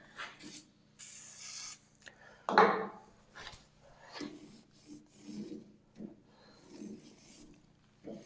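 Hand tools working the height-adjusting bolt and jam nut on a Frontier OS27 sawmill head. There is a sharp knock about two and a half seconds in, then a run of short scraping, rubbing strokes at a fairly even pace.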